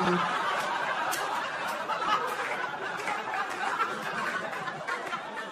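A live comedy-club audience laughing together, a dense crowd laugh that holds steady for several seconds after a punchline.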